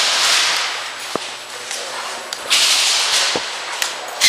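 Two loud swishing rustles of handling and movement noise on the camera's microphone, one at the start and one about two and a half seconds in, with a few sharp clicks in between.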